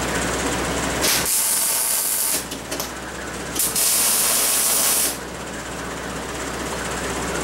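Arc welding on steel tubing: the crackling hiss of the arc in two short runs of about a second and a half each, with a brief stuttering start between them. A steady shop hum sits underneath.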